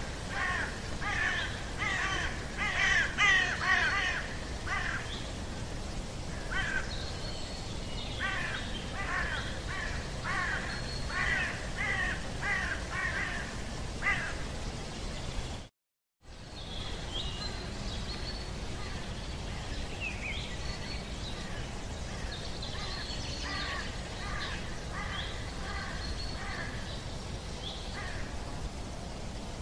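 A large flock of birds calling over one another in a rapid run of harsh, caw-like calls, loudest in the first half. About halfway through the sound cuts out for a moment, then the calls go on fainter, with a few higher whistles among them.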